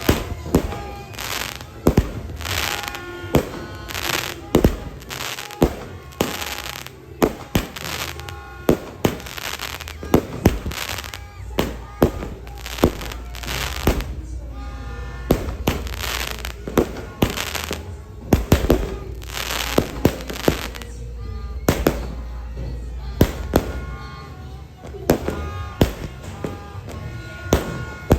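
Fireworks and firecrackers going off repeatedly, sharp bangs at irregular intervals of about one or two a second, some with a short crackling tail, over steady background music.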